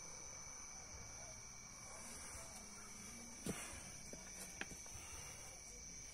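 Faint, steady high-pitched chirring of crickets, with two short knocks about three and a half and four and a half seconds in.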